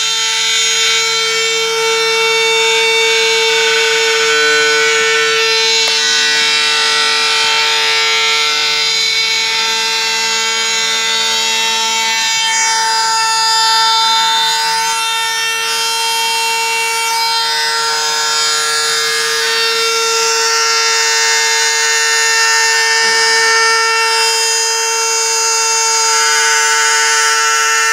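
Small DIY CNC engraving machine running: its spindle motor gives a steady high whine, while the stepper motors hum in lower tones that change pitch in steps as the axes move.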